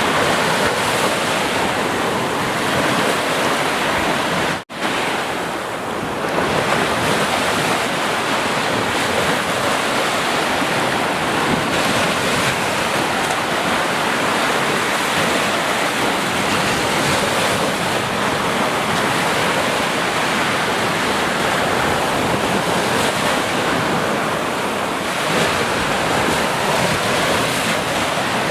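Sea surf washing continuously, a dense steady rush of breaking waves. The sound cuts out for an instant about five seconds in.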